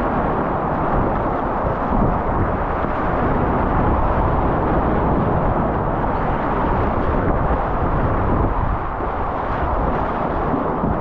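Loud, steady rushing of white water on a mountain river, a muffled rumbling hiss with no clear pitch.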